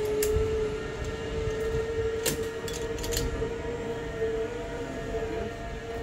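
Zip-line trolley pulleys running along the steel cable: a steady whine that rises slightly in pitch, with a few sharp clicks about two and three seconds in.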